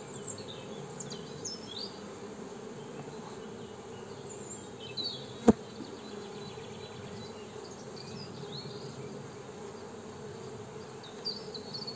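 Honeybees buzzing steadily in a low hum around an opened hive as frames covered in bees are lifted out. A single sharp knock about halfway through.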